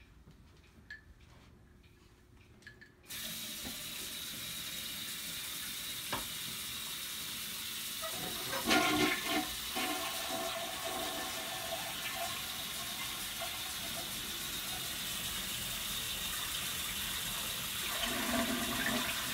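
Bathroom sink faucet turned on about three seconds in and left running in a steady stream into the basin, with a toilet flushing and its bowl swirling partway through.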